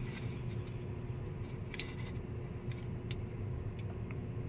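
A few faint small clicks and light handling noises, like small parts and wires being worked by hand, over a steady low background hum.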